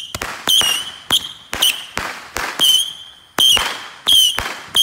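Fireworks going off overhead: a fast string of sharp bangs, two or three a second, mixed with short warbling whistles.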